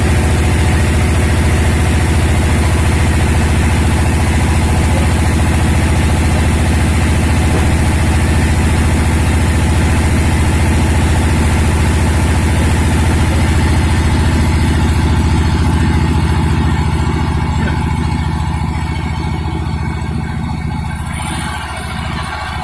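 Sawmill machinery running steadily with a strong low hum. Its higher hiss fades away over the last several seconds.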